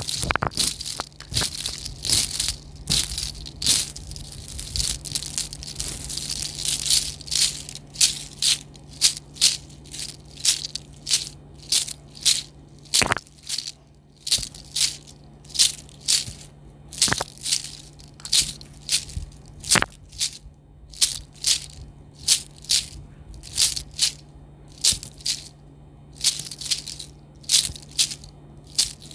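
ASMR trigger sounds: a dry rattling crackle, dense at first, then breaking after about seven seconds into separate quick shaken strokes, about one and a half a second, with a few sharper clicks. A steady low hum runs underneath.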